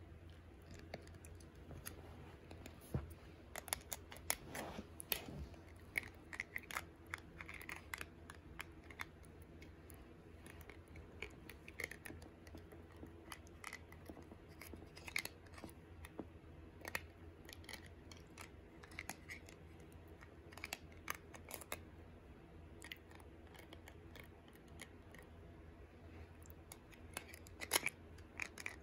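Miniature Pinscher puppy chewing on a white plastic spoon: faint, irregular clicks and scrapes of his teeth on the plastic, a few of them louder.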